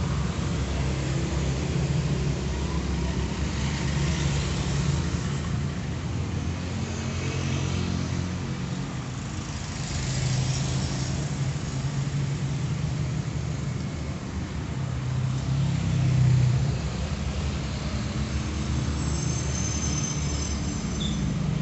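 Steady low hum of a motor-vehicle engine, shifting in pitch and swelling about two-thirds of the way through.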